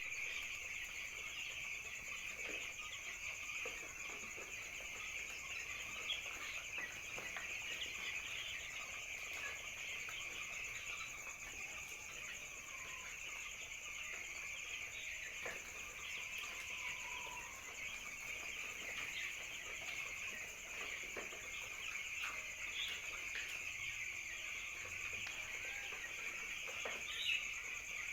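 A large flock of young poultry chicks peeping continuously in a dense chorus, with a steady high-pitched buzz above it.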